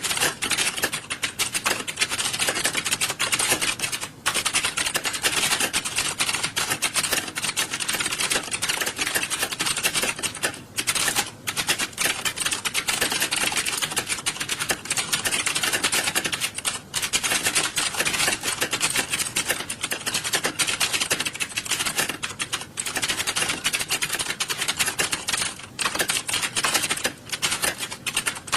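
Many computer keyboards being typed on at once, as in an exam-hall typing test. It is a dense, continuous clatter of overlapping keystrokes, with a few brief lulls.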